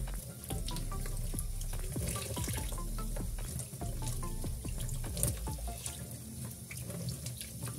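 Tap water running into a stainless steel sink while raw chicken pieces are rinsed and rubbed by hand under the stream, with frequent small splashes and clicks.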